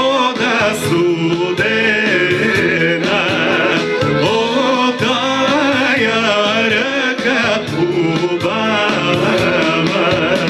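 Bulgarian folk song performed with a singer and band: a sung melody with many pitch ornaments over steady instrumental accompaniment.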